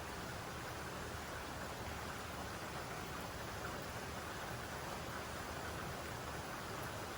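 Steady rainfall, an even hiss of rain with no single drops standing out.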